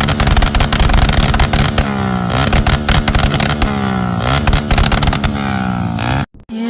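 Yamaha Y15ZR (MX King 150) single-cylinder four-stroke engine running with rapid, uneven popping from the exhaust. From about two seconds in it is revved up and let fall back several times in quick rises and drops. The sound cuts off suddenly near the end.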